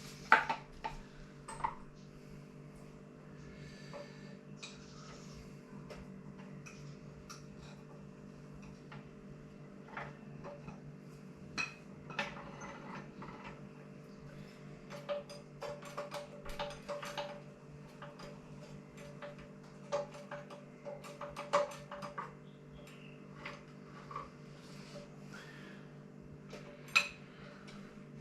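Metal tools and parts clinking and clanking now and then, with a sharp knock at the very start, over a steady electrical hum.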